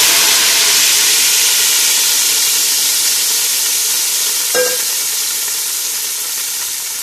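A tadka of hot oil with cumin seeds and whole dried red chillies sizzling hard as it hits the liquid kadhi in a steel pot, the hiss easing off gradually. A short tap sounds about halfway through.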